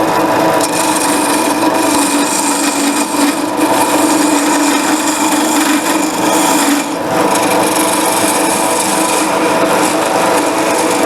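Wood lathe running while a turning tool cuts a spinning wooden blank, shaping the tapered points of small plugs. Continuous scraping of the cut over a steady motor hum, easing off briefly about seven seconds in.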